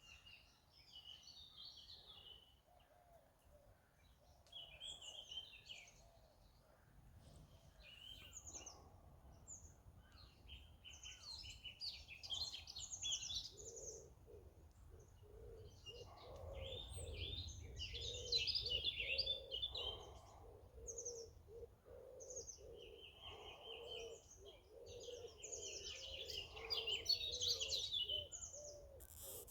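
Songbirds singing in repeated bursts of high, warbling phrases, with a low call repeated at a steady pace joining in from about halfway through.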